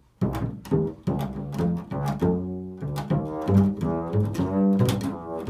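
Double bass played pizzicato: an improvised run of plucked notes, some struck quickly one after another and a few left to ring longer.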